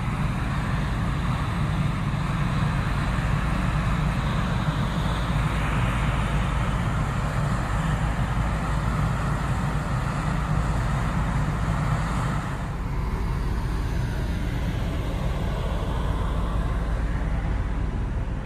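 Steady low rumble of the ferry Ishikari's engines and exhaust from its funnel, heard on the open deck, easing a little about two-thirds through.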